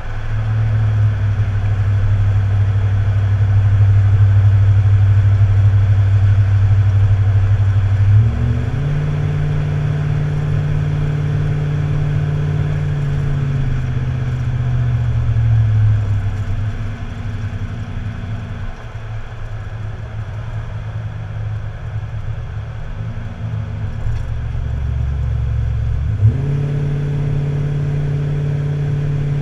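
Tow vehicle's engine running under load while pulling a boat. Its note jumps up abruptly about eight seconds in, drops back in two steps over the next ten seconds, and jumps up again near the end.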